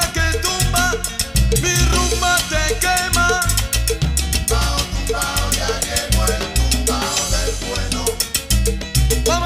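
Salsa brava track playing: a bass line and steady, busy percussion under pitched melodic lines.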